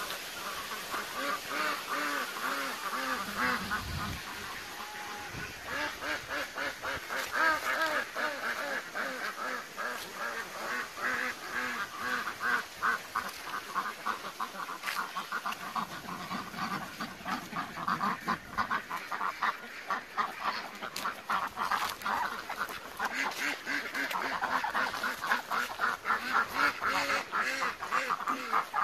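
A flock of domestic ducks quacking, many short calls overlapping in a dense, continuous chatter.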